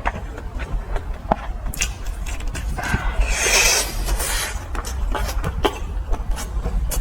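Close-miked eating of fried skewers: scattered small clicks and mouth smacks, with a louder crunchy stretch lasting about a second and a half, about three seconds in. A steady low hum sits underneath.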